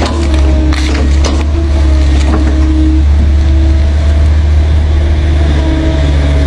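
Excavator's diesel engine running steadily under load, with a hydraulic whine that wavers in pitch. A few sharp knocks come in the first second and a half.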